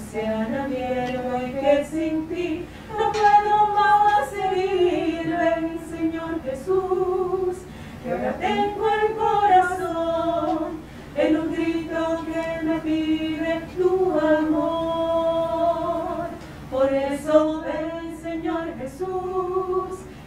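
Three women singing a communion hymn in Spanish together, unaccompanied, in long held phrases with short breaths between them.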